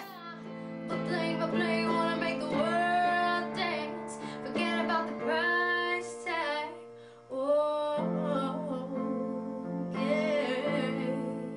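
Background music: a woman singing a soft, melodic tune over light instrumental accompaniment.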